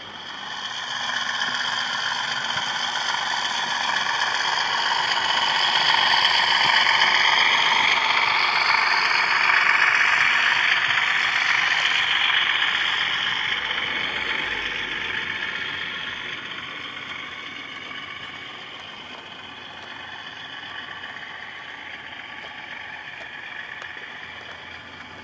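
00 gauge model train running past on the track: a steady rush of wheels on the rails that swells over several seconds and then slowly fades as it moves away.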